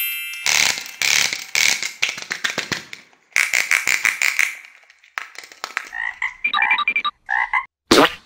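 Frog croaking sounds going with a green plastic toy frog: several bursts of rapid rattling croaks, then a few shorter, higher chirps. A brief whoosh comes just before the end.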